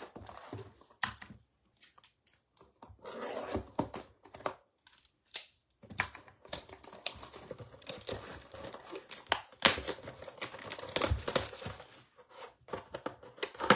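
Cardboard trading-card blaster box being opened by hand: plastic wrapping torn and crinkled, cardboard flaps rustling, and packs pulled out. Scattered at first, then busier crinkling and clicking from about halfway through.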